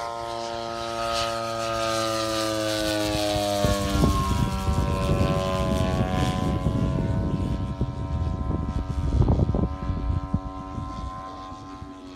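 Scratch-built 110-inch radio-controlled Kawasaki Ki-100 model aircraft flying past, its motor and propeller drone falling in pitch as it passes and then fading as it flies off. A low rumble joins in from about four seconds in.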